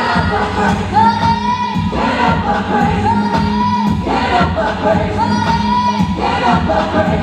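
Upbeat gospel praise song: a choir singing over a band with a steady beat.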